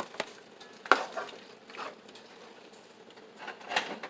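A few scattered light clicks and knocks of kitchen utensils and cookware as chopped vegetables are added to a pot of chicken curry.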